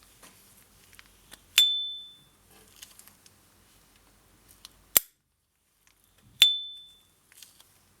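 S. T. Dupont Ligne 2 lighter lid flipped open twice, each time with its loud, clear high-pitched ping that rings for about half a second. Between the two pings the lid snaps shut with a short, sharp click.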